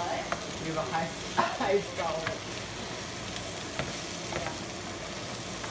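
Sliced eggplant and red peppers sizzling in oil in a nonstick frying pan, with a wooden spatula scraping and tossing them around the pan, most of the stirring strokes in the first half.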